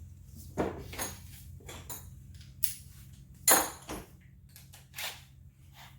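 Metal hand tools and loosened engine parts clinking and clattering as they are handled: about five separate sharp clinks, the loudest about three and a half seconds in.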